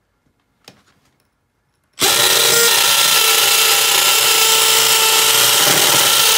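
Makita 18V cordless hammer drill with a masonry bit starting abruptly about two seconds in and then running steadily at full speed as it bores a hole into a concrete block.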